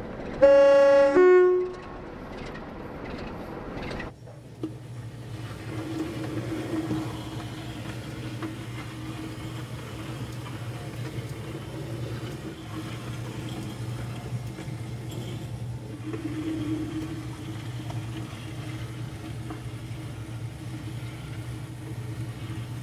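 A loud two-note train horn sounds about half a second in, a lower note then a higher one. From about four seconds a Hornby OO gauge Class K1 model steam locomotive runs along the track, its small electric motor giving a steady hum.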